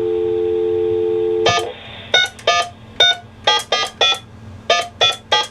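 Payphone handset dial tone, a steady two-note hum, that stops with a click about a second and a half in. A quick run of about eleven touch-tone (DTMF) key beeps follows as a long-distance number is dialed.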